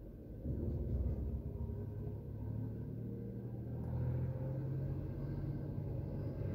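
Engine running with a low, steady rumble that comes in about half a second in.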